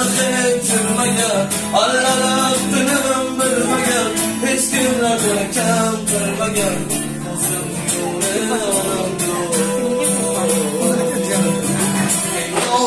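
A man singing a slow song while strumming an acoustic guitar.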